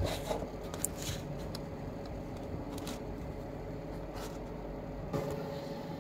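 Faint scattered clicks and taps of a smartphone and a small USB service box being handled on a desk, over a steady low hum.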